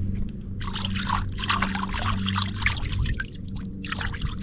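Water splashing and dribbling in irregular spurts as a fishing line clogged with weeds is hauled out of the water, over a steady low hum.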